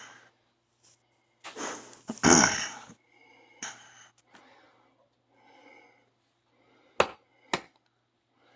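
Hand and kitchen handling sounds while a second egg is cracked. A loud rustling knock comes about two seconds in, then faint soft movement. Two sharp taps near the end are the eggshell being knocked to crack it.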